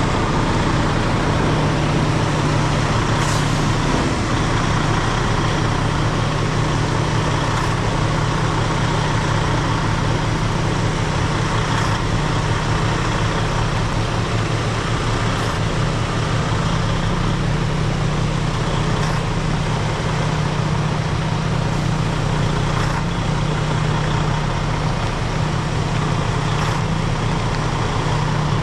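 Semi truck's diesel engine idling steadily, with a faint short tick about every four seconds.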